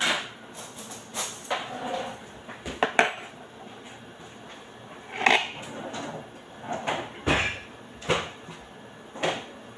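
Kitchen cabinet doors and drawers opening and shutting, with items knocking and clattering as they are moved about in search of an ingredient. About nine separate knocks come at irregular intervals, with short quiet gaps between them.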